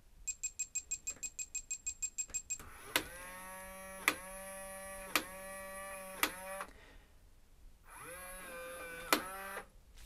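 Lockly Vision smart deadbolt powering up and self-calibrating: a fast run of about sixteen short electronic beeps, then its motor whirs for about four seconds with a click about once a second, stops, and whirs again for about two seconds as it drives the deadbolt.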